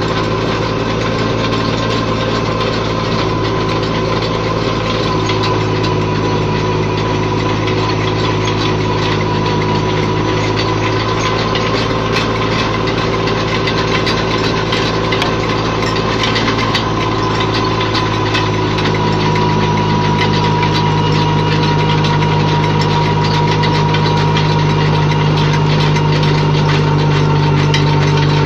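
Tractor's diesel engine running steadily, driving a tractor-mounted post-hole auger boring into soil, with a thin steady whine over the engine note. About two-thirds of the way through the engine note changes and grows a little louder.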